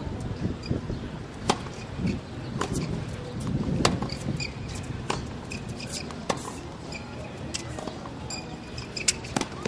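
Tennis ball being hit with rackets and bouncing on the court during play, sharp hits coming about every second or so over a low background murmur.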